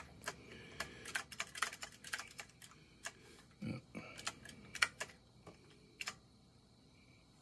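Keystrokes on an Apple II computer keyboard: irregular key clacks as a line is typed, the last of them, about six seconds in, the Return key entering the line.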